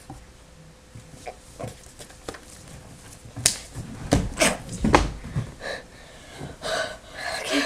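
Handling noise at the webcam: a few light clicks, then a quick run of sharp knocks and heavy thumps about halfway through as the camera is bumped and moved, followed by breathy noises from someone right at the microphone.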